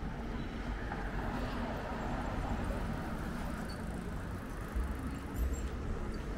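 City street ambience: a steady wash of traffic noise, with a brief low rumble about five seconds in.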